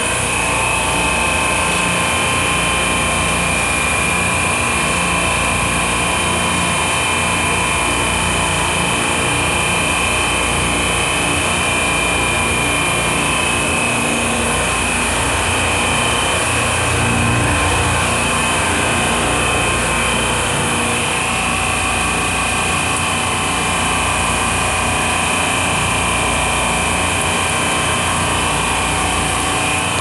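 Supermarket refrigeration rack's reciprocating compressors running, a steady loud mechanical drone with a constant high whine over it.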